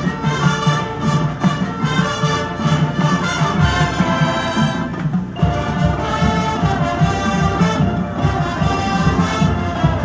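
High school marching band playing its competition show, with brass carrying sustained chords over heavy low drums and percussion. The upper parts thin briefly about halfway through before the full band comes back in.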